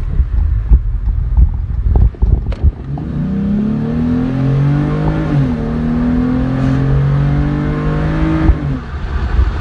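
3.6L Pentastar V6 of a 2017 Dodge Ram with a cold air intake pulling away under acceleration, heard with the windows down: a low rumble for about three seconds, then the revs climb, drop at a gear change about five seconds in, and climb again before easing off near the end.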